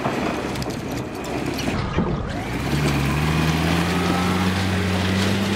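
A four-wheel-drive SUV drives past with its engine running steadily, the note rising a little about three seconds in. This follows a couple of seconds of rushing noise with scattered knocks.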